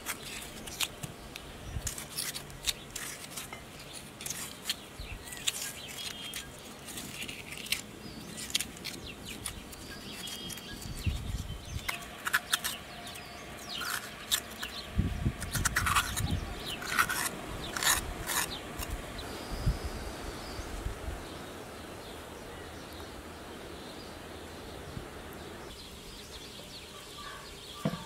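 A small knife working raw vegetables by hand: cutting a tomato, then carving and scraping out the inside of a raw potato, heard as a run of close clicks and scrapes that is busiest in the middle. Birds chirp now and then in the background.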